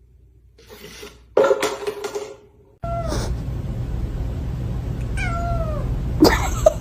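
Domestic cat meowing: a short falling meow about three seconds in and a longer meow that slides down in pitch about five seconds in, over a steady background hiss.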